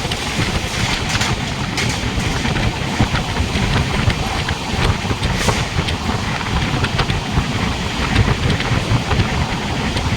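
Moving train running along the track: a steady low rumble with wind rushing past the microphone, and frequent faint clicks and rattles through it.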